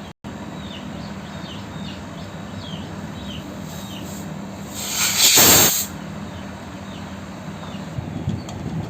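A loud burst of gas hissing, about a second long, starting near the middle: R134a refrigerant escaping at the charging line during fridge gas charging. It sits over a steady low hum.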